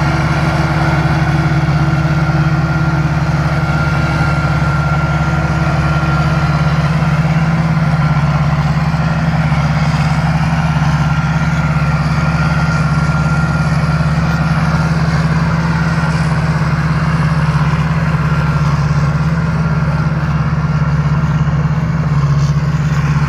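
Combine harvester's turbo-diesel engine running steadily under load while harvesting, a loud, even low drone with the machine's threshing gear, and a thin high whine that fades about halfway through.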